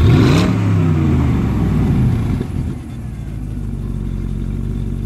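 Pontiac GTO's 6.0-litre V8 idling and revved once right at the start: the engine note climbs sharply, then falls back over about two seconds to a steady idle.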